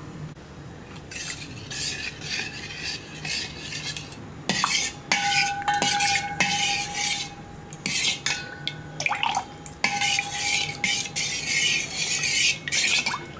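Metal spoon stirring gelatin powder into water in a stainless steel pot, scraping round the pot in repeated strokes to dissolve it. Now and then the spoon knocks the side and the pot rings with a clear tone.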